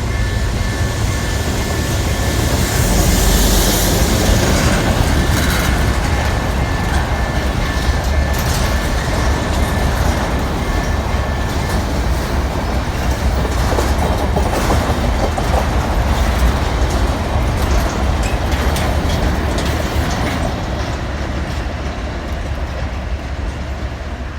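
Freight train of boxcars passing behind a diesel locomotive. There is a steady low rumble of the engine and wagons, and the wheels click over the rail joints.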